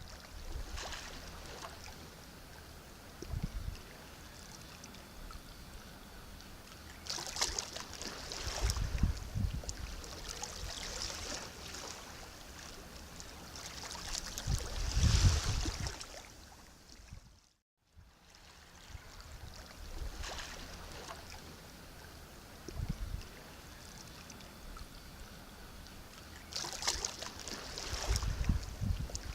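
Sea waves washing in and drawing back, each swell rising every few seconds, with the biggest surge about halfway through. Just after that the sound drops out for a moment, then the waves resume.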